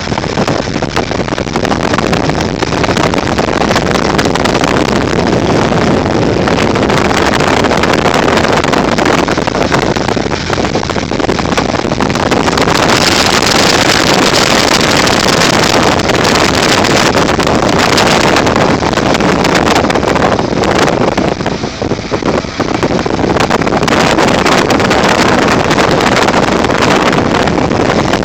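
Loud, steady wind noise buffeting the microphone over a running vehicle, with a brief dip about three quarters of the way through.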